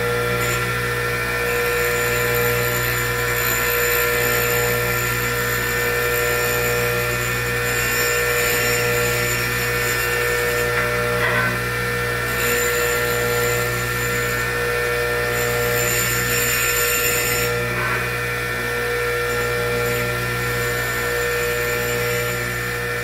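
8-inch bench grinder running steadily at full speed, a level motor hum with several steady tones, while a single-point diamond dresser is drawn lightly across the spinning wheel to true out its radial run-out. A faint high hiss comes and goes over it.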